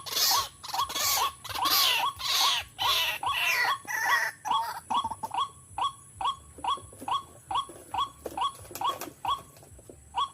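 White-breasted waterhen calling a rapid run of short, harsh repeated notes, about two to three a second. They are rougher and noisier for the first few seconds, then become cleaner, with a short pause near the end.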